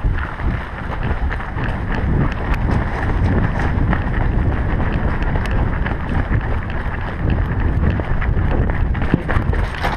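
Wind buffeting the microphone of a head-mounted action camera as the wearer moves, a dense low rumble with scattered light clicks and knocks.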